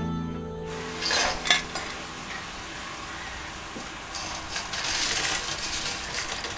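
A sustained music chord fades out in the first second. Then come crisp fried chips rustling and clattering as they are scooped and tipped with a steel vessel on newspaper, with light metal clinks, in a short burst about a second in and a longer crackling run near the end.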